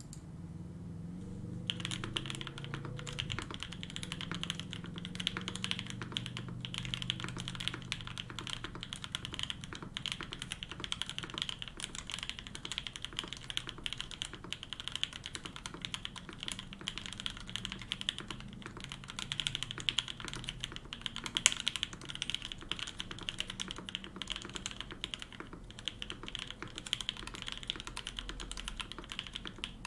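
Continuous fast touch-typing on a Satisfaction 75 custom mechanical keyboard with an FR4 plate, lubed Opblack switches, lubed TX stabilizers and GMK Botanical keycaps. A dense run of keystrokes starts about two seconds in.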